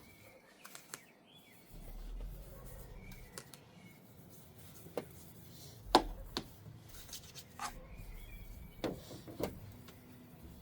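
A few sharp knocks and light clicks from handling the rain-repellent applicator and bottle on the car windscreen, the loudest about six seconds in, with faint bird chirps in the background.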